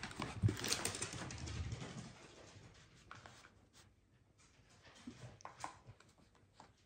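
A miniature dachshund tearing a paper printout off a cabinet with its teeth: a burst of paper ripping and rustling in the first two seconds, then fainter crinkles as it mouths the paper on the rug.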